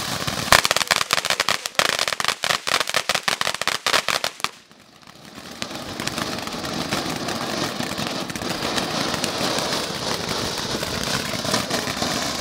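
Dominator Rib-It Frog consumer ground fountain firework burning: a dense run of rapid crackling pops for about four seconds, a brief lull, then a steady hissing spray of sparks.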